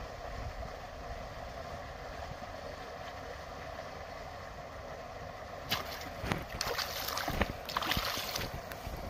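Steady background hiss, then from about six seconds in a hooked rohu thrashing and splashing at the water's surface for a few seconds.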